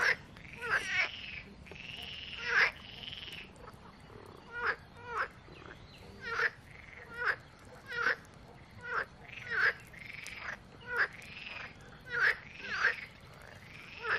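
Frogs croaking, a string of short calls about one a second, some in quick pairs.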